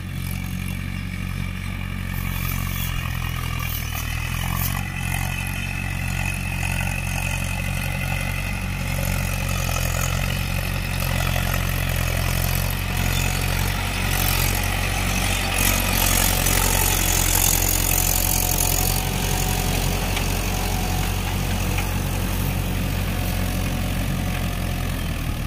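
Swaraj 843 XM tractor's three-cylinder diesel engine running at a steady pitch under load, pulling a cultivator with its tines fully lowered into the soil, with no rpm dropout. It grows louder near the middle as the tractor passes close.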